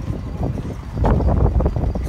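Wind buffeting the microphone, a low gusty rumble that grows louder about a second in.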